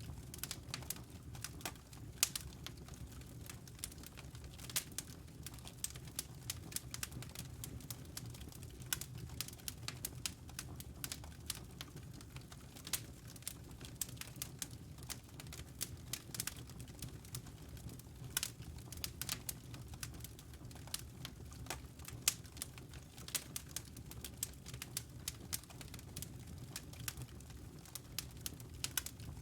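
Wood logs burning in a fireplace: irregular sharp crackles and pops, several a second, over a steady low rumble of the flames.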